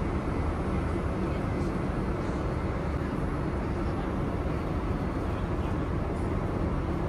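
Steady low cabin noise of a Boeing 787-8 airliner in cruise: the constant rush of airflow and engines heard inside the cabin.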